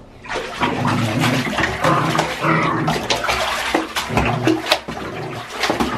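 Bathwater sloshing and splashing in a shallow tub as a person wades and scoops around a wet Pomeranian, with short low growls from the dog mixed in.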